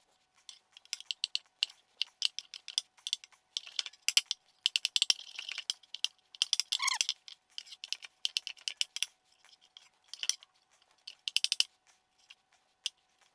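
Chef's knife dicing cooked beef tongue on a wooden cutting board: quick, irregular runs of light knife taps against the board, with short pauses between runs.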